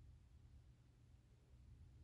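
Near silence: room tone with a faint steady low rumble.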